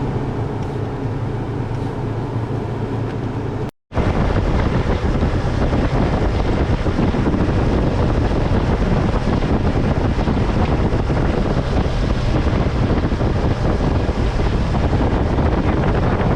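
The 3.4-litre V6 of the 1998 Toyota Tacoma idling with a steady hum. The sound drops out briefly almost four seconds in, and then a louder, steady rushing noise takes over.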